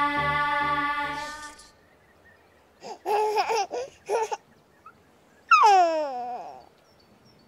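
A children's song ends on a held chord about a second and a half in. Then a baby babbles and giggles in short bursts, and a little later gives a loud laugh that slides down in pitch.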